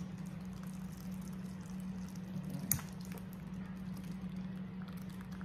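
Beaten egg mixture pouring from a glass bowl into a foil pan, a soft liquid splashing and dripping, over a steady low background hum. A single sharp click sounds about two and a half seconds in.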